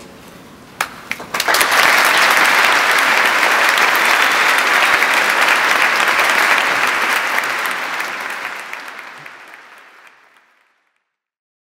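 Concert audience applauding after an orchestral song: a few first claps about a second in, then full applause that fades out near the end.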